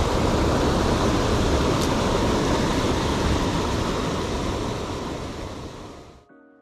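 Loud, steady rushing of mountain river water. It fades away over the last couple of seconds and cuts off abruptly near the end.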